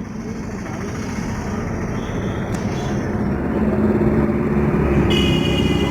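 A motor vehicle engine running, a steady rumble that grows louder from about three and a half seconds in, with a high thin whine joining near the end.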